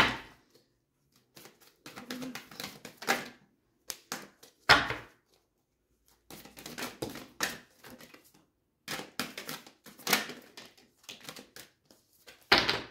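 An oracle card deck being shuffled by hand: bursts of quick papery clicks and flicks with short pauses between them, and two sharper knocks, about five seconds in and near the end.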